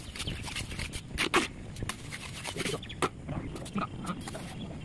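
Steel mason's trowel scraping and slapping cement mortar onto brick, in short irregular strokes, with a few short animal calls in the background.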